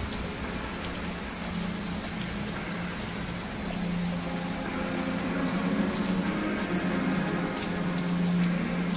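Quiet intro of a slowed, reverb-heavy electronic track: a rain recording, a steady hiss with scattered drops, under long held low synth notes. It swells a little about halfway through.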